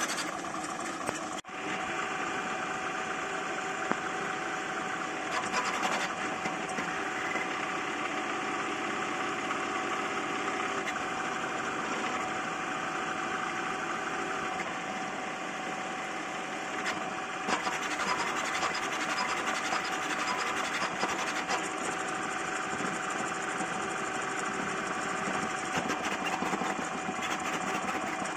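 High-speed CoreXY 3D printer printing PLA with very high acceleration: the stepper motors whir and buzz in quickly shifting pitches as the toolhead darts back and forth, over a steady tone. It breaks off sharply for an instant about a second and a half in.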